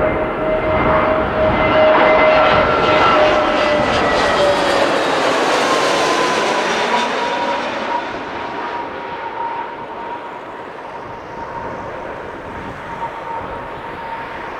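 Aircraft engines passing close by: the engine tones drop in pitch as it goes past about five seconds in, and the sound then settles into a fainter, steady engine noise as it moves away.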